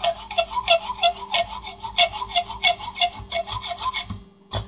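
Hand file scraping back and forth across a bolt head held in a vise, about three quick, even strokes a second, widening the screwdriver slot cut into the head. The strokes stop near the end and a single sharp knock follows.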